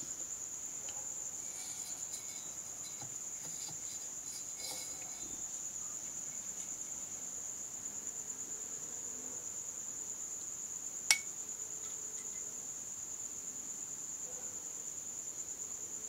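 A steady high-pitched whine runs throughout, with a few faint ticks in the first seconds. About eleven seconds in comes a single sharp click, like a switch being flicked.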